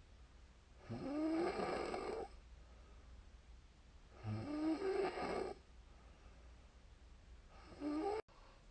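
A woman snoring in her sleep: three snores about three seconds apart, each a second or so long with a wavering pitch, and quiet between them.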